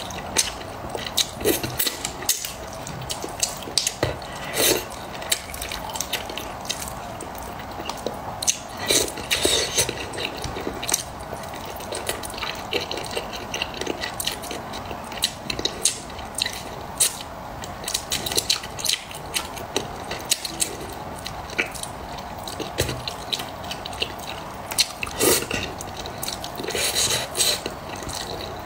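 Close-up eating sounds of a person chewing spicy braised fish: irregular wet mouth clicks and smacks, many a second at times, with no pause.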